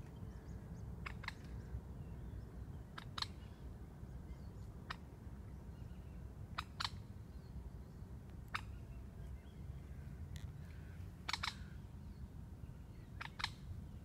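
Short sharp clicks or snaps every one to three seconds, several of them in quick pairs, over a steady low rumble.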